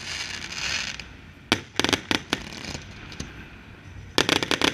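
Fireworks display: a hiss of shots launching from the firing line, broken by a quick cluster of sharp bangs about a second and a half in and a faster volley of bangs near the end.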